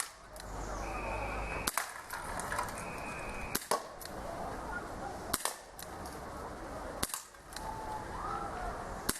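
Dan Wesson .357 CO2 revolver firing BBs: six sharp shots, about one every two seconds.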